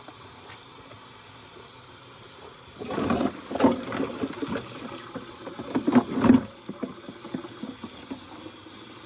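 Kitchen tap running with a steady hiss. About three seconds in come a few seconds of louder splashing and clatter as dishes are washed in the sink.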